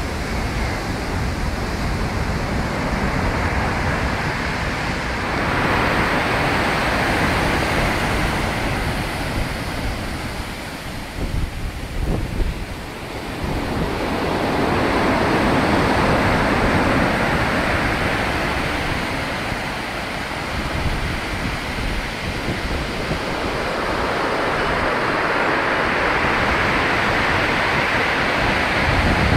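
Rough sea surf: waves breaking and washing up the shore in a continuous rush, swelling loud roughly every ten seconds as each big breaker crashes in.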